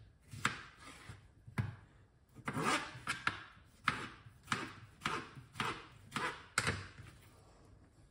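Kitchen knife chopping cucumber: a run of about a dozen sharp knife strikes, one or two a second, stopping about a second before the end.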